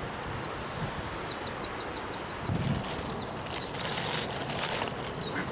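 Outdoor ambience with a small bird calling: a quick run of about eight high repeated notes about a second and a half in, then a rustling hiss with a few faint chirps for a couple of seconds.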